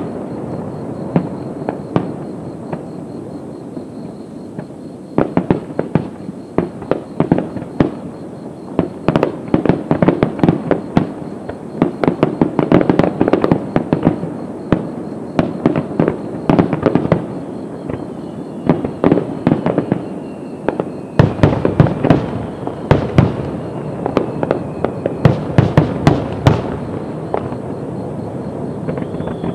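Fireworks display: aerial shells bursting in a rapid, irregular barrage of sharp bangs over crackling. The bangs are sparser at first and come thick and fast from about five seconds in, with a faint falling whistle in the second half.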